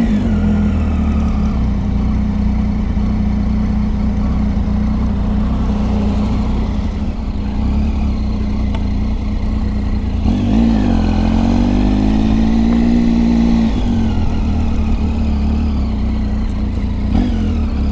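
Triumph Tiger 800XC's three-cylinder engine running steadily under way. About ten seconds in, the revs dip and then climb again over a few seconds.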